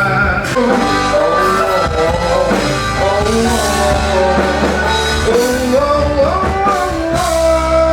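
A live band playing a pop song, with a melody line over a steady bass.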